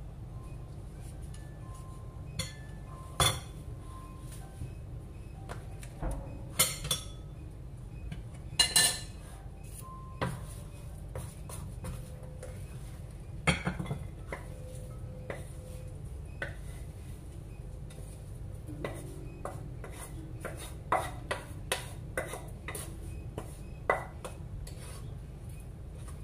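Utensils scraping and clinking against nonstick frying pans and plates as a fried potato-corn mixture is scooped out of the pans onto plates. Irregular sharp clinks, some ringing briefly, over a steady low hum.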